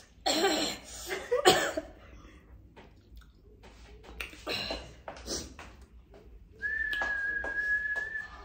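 Sharp, breathy exhalations and gasps from a mouth burning from spicy noodles, then near the end one steady whistled note held for about a second and a half.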